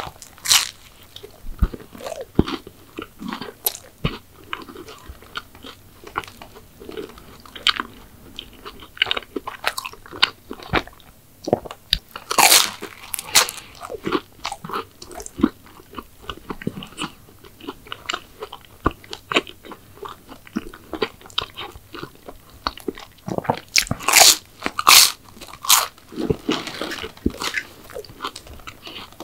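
Close-miked eating of crisp McDonald's sweets: crunchy bites and chewing, with the loudest crunching bites about halfway through and again near the end, and softer chewing in between.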